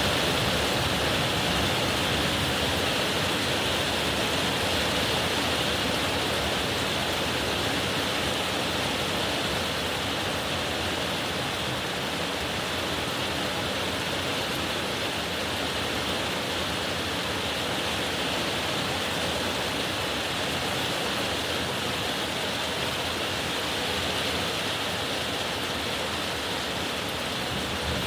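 Heavy rain pouring down in a steady, dense hiss, easing very slightly over the stretch.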